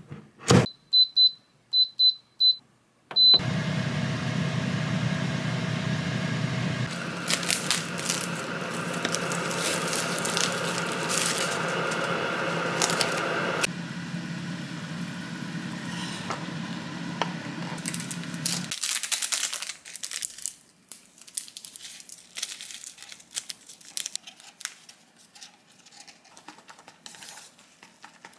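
An air fryer oven door clicks shut, then its control panel beeps about six times and its fan starts a steady whir with a low hum. Hot water is poured from a kettle into a paper noodle cup. Near the end come small scattered clicks and rustles of wooden chopsticks stirring noodles in the cup.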